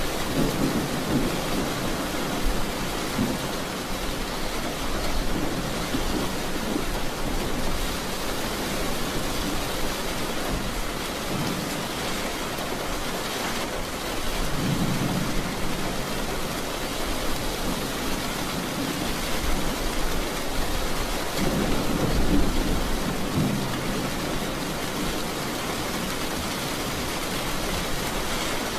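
Heavy rain pouring onto a car's roof and windshield, heard from inside the cabin as a steady hiss, with low rumbles swelling up several times.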